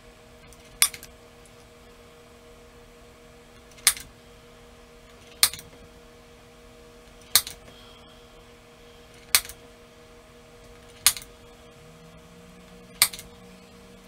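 Spring-loaded automatic center punch firing into wood seven times, a sharp snap every two seconds or so. It is set to low pressure, so each strike only makes a small dent to mark a tack hole.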